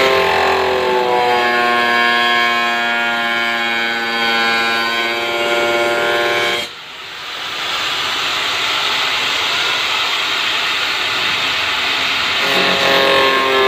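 Handheld angle grinder with a cutting disc running with a steady high whine as it cuts into the plastic top of a blue 250-litre plastic barrel. About halfway through the sound dips sharply for a moment, then comes back rougher and hissier, and the clear whine returns near the end.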